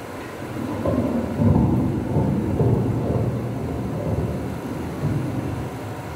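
Microphone handling noise as the mic and its gooseneck stand are bent and adjusted: low rumbling and bumping that starts about a second in, loudest soon after.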